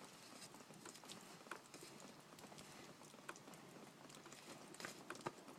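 Near silence: faint outdoor quiet with a handful of soft, scattered clicks or crunches.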